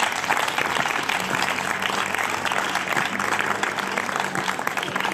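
A small crowd applauding, a steady patter of many hands clapping.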